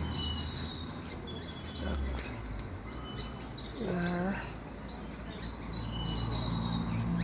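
Small birds chirping, with many short high chirps and twitters throughout. About four seconds in, a brief lower pitched call sounds once, and a low steady hum rises near the end.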